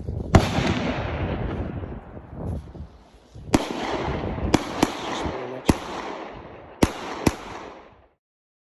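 Seven gunshots at irregular intervals, each with a ringing echo tail; the first is the loudest. A low rumble of wind runs between them, and the sound cuts off abruptly near the end.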